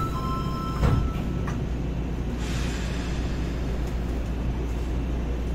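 Subway train standing at an underground platform with a steady low hum. A two-tone electronic chime cuts off just under a second in with a loud thump, followed by a lighter click and, about two and a half seconds in, a short hiss.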